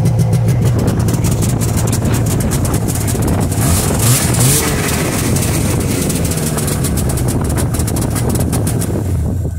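1998 Yamaha V-Max XT500 snowmobile's two-stroke engine running steadily just after a cold start, with a short rise in revs about four seconds in.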